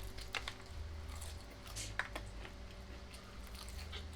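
Someone biting into and chewing sauce-coated fried chicken, with a few short crunches of the crust.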